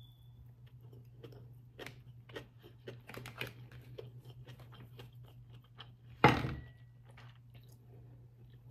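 Close-up chewing of a mouthful of food, with many small wet mouth clicks. About six seconds in there is one much louder, brief knock with a short faint ring after it.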